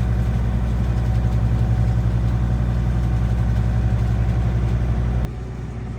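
A sailboat's engine running steadily at low speed while motoring slowly into harbor, a deep even hum. About five seconds in the sound drops abruptly to a quieter level.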